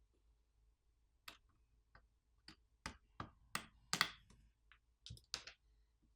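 Irregular sharp clicks and taps of small tools and tablet parts being handled during disassembly, about a dozen of them starting about a second in, the loudest near the middle.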